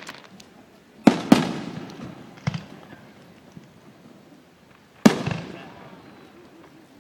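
Fireworks shells bursting overhead: two booms close together about a second in, a smaller one at about two and a half seconds, and another about five seconds in, each dying away in a trailing rumble.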